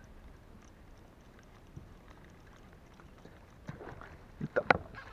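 Faint steady background, then a quick cluster of sharp knocks and clicks near the end, the loudest a single hard click.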